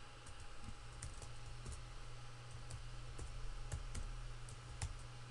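Computer keyboard being typed on: about a dozen irregular keystroke clicks over a steady low hum.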